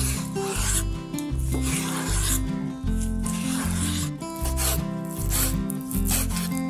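Repeated rasping, scraping strokes of food preparation, one every second or so, over background music with a stepping bass line.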